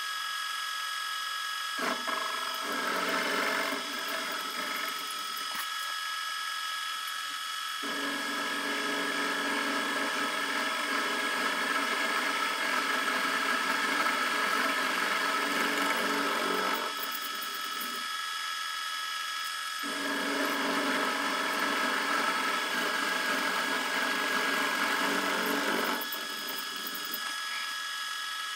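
Milling machine running with a steady whine while milling dovetail slots for a rifle barrel's underlugs; the cutter bites into the work three times, the longest pass in the middle, each adding a louder, harsher cutting noise over the motor.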